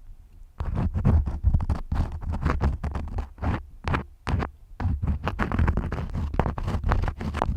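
Crayons scribbling in quick, irregular back-and-forth strokes close to the microphone, each stroke carrying a low rumble. The strokes begin about half a second in.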